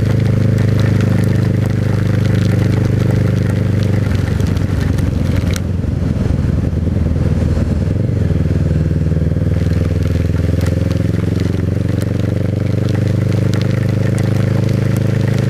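Motorcycle engine running at a steady cruising speed, with heavy rain and wind noise crackling on the microphone.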